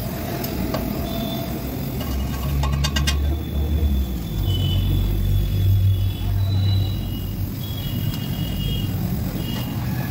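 Gas brazing torch flame burning with a low, steady rush, louder in the middle few seconds, while a diamond segment is brazed back onto a steel core bit. A short run of clicks about three seconds in.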